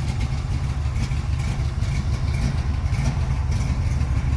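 Small-block Chevrolet V8 idling steadily through Flowmaster 40 Series mufflers, a deep, even exhaust note.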